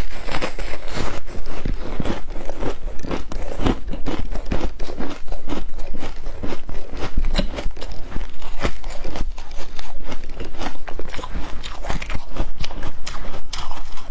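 A person biting and chewing soft foam ice and humidifier flaked ice, with rapid, continuous crunching.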